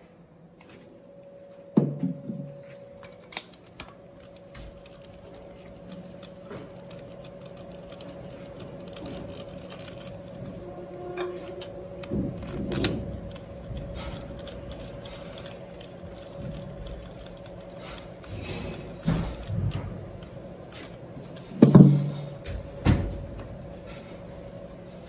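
Metal clinks, rattles and knocks of a compression tester's hose and threaded adapter being handled and screwed into the next cylinder of a Nissan R9M 1.6 diesel engine, over a steady faint hum. A few louder knocks stand out, the loudest about two seconds in and near the end.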